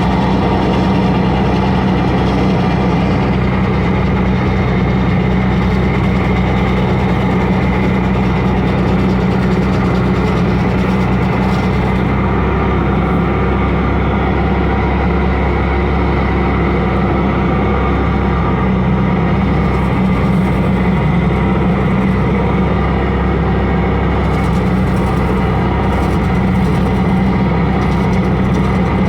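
Bobcat skid steer engine running steadily at high speed, driving an SG60 hydraulic stump grinder whose worn teeth are grinding a hard, live green ash stump.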